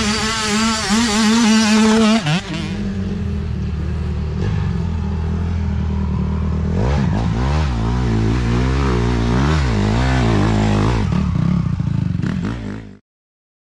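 Small dirt bike engines revving, the pitch rising and falling with the throttle, with a steadier lower engine note in between. The sound cuts off suddenly near the end.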